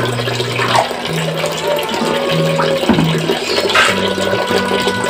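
Water splashing as a bucket of muddy water and eels is poured out into a shallow tiled pond, over background music with low held notes that change every second or so.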